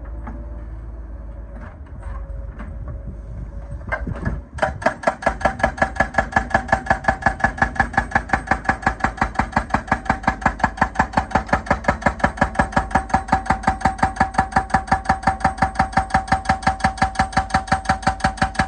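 Excavator hydraulic breaker hammering: a fast, even run of loud metallic blows, about six a second, that starts about four and a half seconds in and stops abruptly at the end. Before it, the machine's engine runs steadily with a few clicks.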